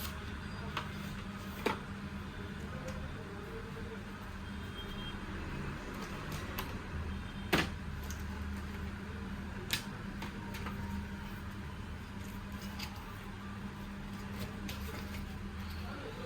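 Unboxing handling sounds: a few sharp clicks and taps from the phone box and its contents, about three standing out, over a steady low hum.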